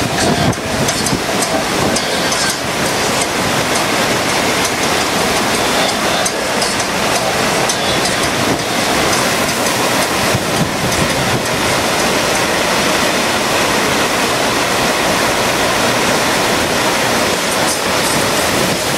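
Steady rushing of the thin sheet of water pumped up a FlowRider wave-simulator ramp.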